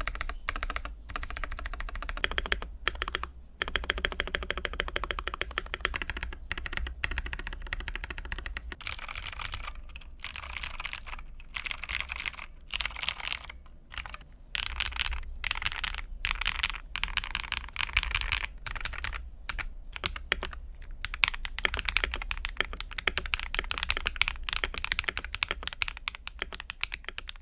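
Continuous typing on a Rakk Lam-Ang Lite mechanical keyboard with Akko Vintage White switches on the alphas and Akko Lavender Purple switches on the modifiers, its case tape-modded and fitted with PE foam. It is a rapid run of keystrokes with short pauses between bursts.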